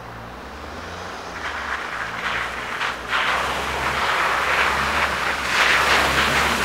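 Off-road 4x4 approaching on a muddy track, its engine running under power and growing steadily louder, with its tyres splashing and spraying through mud and puddles, heavier after about three seconds.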